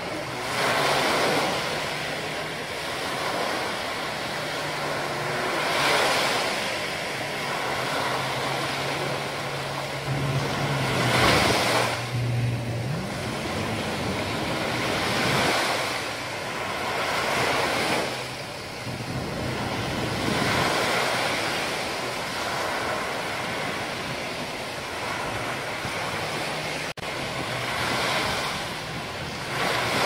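Small sea waves breaking on a sandy beach and washing up the shore, the surf swelling and fading every few seconds. A low steady hum runs underneath.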